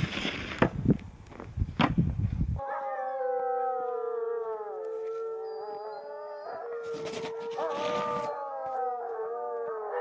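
A snow shovel scrapes and knocks through packed snow for the first couple of seconds. Then several Alaskan malamutes howl together in long, wavering, overlapping howls, and the shovel scrapes briefly again about seven seconds in.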